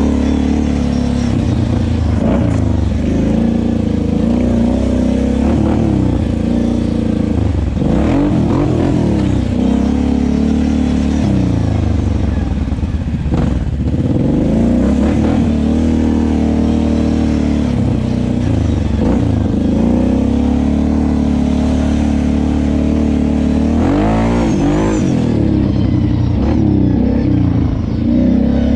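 Kawasaki KFX 700 ATV's V-twin engine running under the rider, revving up and falling back again and again as the throttle is worked, with a big rise in pitch near the end.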